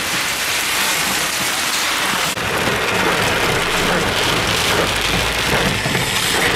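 Heavy thunderstorm rain pouring down, a dense steady hiss. About two seconds in it changes to rain beating on a car's roof and windscreen heard from inside the car, with a low rumble underneath.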